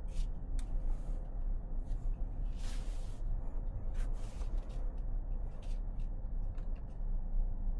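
2025 Hyundai Santa Fe on the move: a steady low road and drivetrain rumble, with a few brief clicks and a short hiss about three seconds in.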